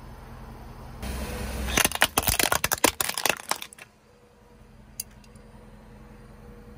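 Hard plastic toy car cracking and snapping as a car tyre rolls over it: a rapid run of cracks lasting about two seconds, starting about two seconds in, then a single click about five seconds in.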